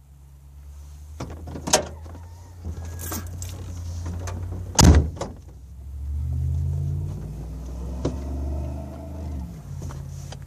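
Pickup truck's fuel-injected 3.0 V6 engine running, heard from inside the cab, its pitch climbing for a few seconds past the middle and then settling back as it is revved. Several sharp knocks in the cab, the loudest about five seconds in.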